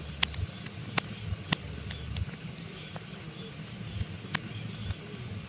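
Pine wood burning in a fireplace, crackling with irregular sharp pops, the loudest about a second in, over a steady low rumble and hiss.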